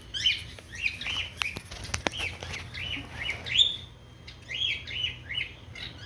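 A bird chirping over and over, a quick run of short, high chirps several times a second, with a few sharp clicks about two seconds in.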